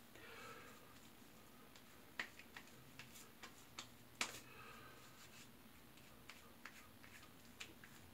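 Near silence: room tone with a few faint scattered clicks and taps, the loudest about two seconds and four seconds in.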